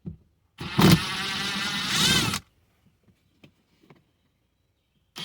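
Cordless power driver spinning out a 10 mm bolt through an extension: a motor whine of about two seconds whose pitch rises near its end as the bolt frees, then a second short burst near the end.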